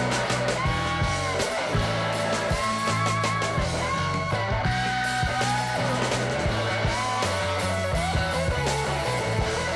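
Background music: guitar-led rock with a steady bass line and a sliding lead melody.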